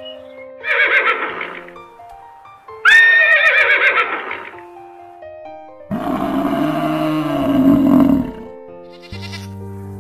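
Animal calls over background music. Two calls come in the first half, then a long, low bellow about six seconds in, from an American bison.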